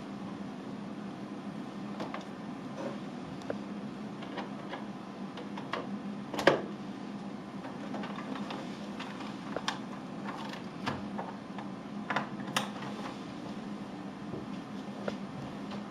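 Scattered light clicks and knocks over a steady low hum, with a sharper click about six and a half seconds in and another about twelve and a half seconds in.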